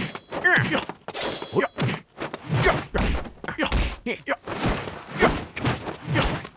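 Film fight sound effects: a quick run of punch and blow impacts, thuds and whacks several times a second, mixed with the fighters' shouts and grunts of effort.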